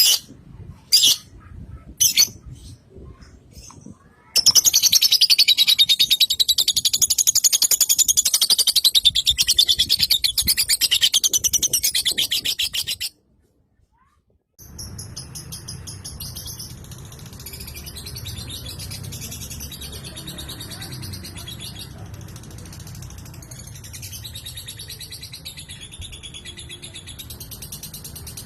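Lovebird singing: a few sharp chirps, then about four seconds in a long, loud, rapid high-pitched trill lasting some eight seconds. After a brief silent break, quieter continuous chattering.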